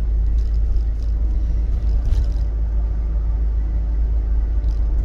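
Steady low rumble inside the cab of a Volkswagen Crafter 2.0 turbo-diesel van, its engine freshly reconditioned and running. A few faint brief rustles sound over it.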